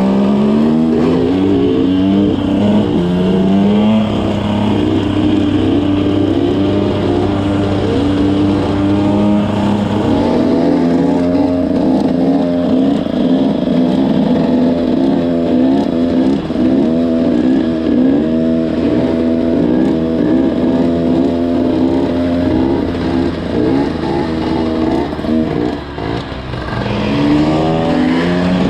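Dirt bike engines running and revving, the pitch climbing and dropping again and again as the throttle is worked through the gears. The sound dips briefly near the end, then climbs again.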